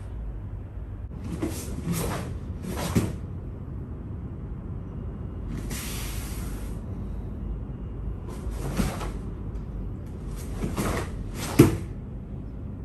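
Karate gi snapping and swishing as a kata's strikes and blocks are thrown, in quick groups of two or three sharp cracks, with one longer swish in the middle. The loudest hit is a heavy snap with a thud near the end. A steady low room hum runs underneath.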